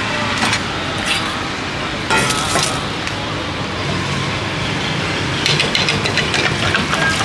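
Metal bowls clinking and knocking against metal, with the sharpest, ringing knock about two seconds in and a cluster of clinks near the end, over a steady background of street traffic.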